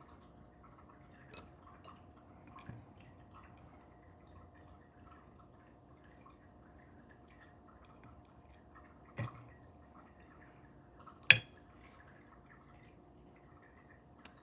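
A few scattered sharp clicks and taps of small metal lock parts and tools as a Mul-T-Lock Interactive dimple lock is taken apart, the loudest about eleven seconds in. A faint steady hum sits underneath.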